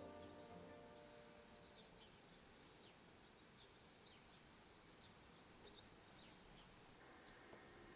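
Faint birds chirping, many short calls scattered over quiet room tone, as background music fades out in the first second.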